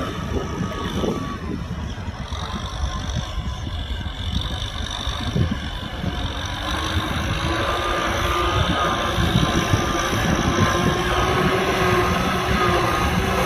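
Kubota M6040SU tractor's diesel engine running steadily under load while plowing mud, getting louder in the second half.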